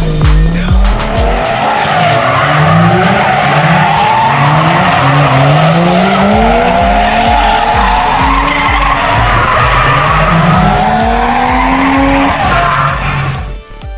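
Loud electronic music with a pulsing bass beat, over which repeated rising engine-like glides and a steady hiss sound like revving and tyre squeal.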